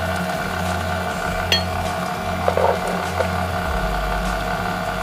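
KitchenAid stand mixer running steadily, its flat beater mixing eggs into creamed butter and sugar in a glass bowl. The motor hum shifts slightly in pitch near the end. There is a sharp click about one and a half seconds in and a few light clinks a second later.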